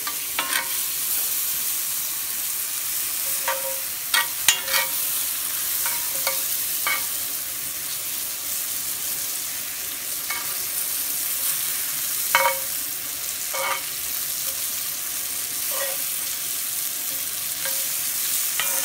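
Sliced mushrooms sizzling in butter in a cast iron skillet: a steady frying hiss. A metal spoon scrapes and knocks against the pan every second or few as they are stirred.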